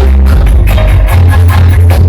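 Loud sound-system music with a heavy, sustained bass line and a steady drum beat.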